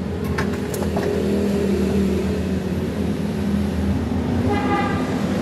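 Steady low hum of running machinery, with a few light clicks in the first second and a short higher-pitched tone near the end.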